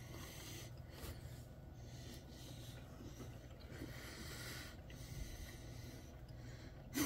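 Faint chewing and breathing through the nose as two people eat a soft cookie with their mouths closed.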